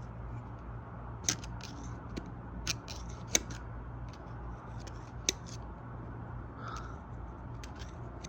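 Small metal tool clicking and tapping against the cylinder head while probing the turbo oil feed passage, which is clogged with foreign material, with four sharper clicks among lighter ticks. A steady low hum runs underneath.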